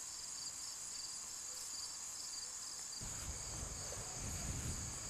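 Insects trilling steadily in a high, unbroken buzz, with a faster pulsed chirping over it for the first few seconds. A low rumble joins about three seconds in.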